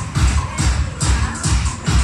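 Loud dance-pop music with a heavy, steady kick drum, about two and a half beats a second.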